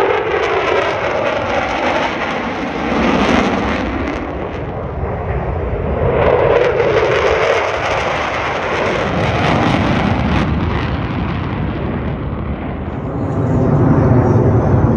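Military fighter jets flying past in formation, their jet engine noise loud and steady, swelling and fading several times as the jets pass.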